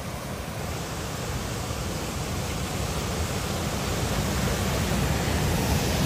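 Rushing white water cascading over rocks: a steady, even roar that grows gradually louder.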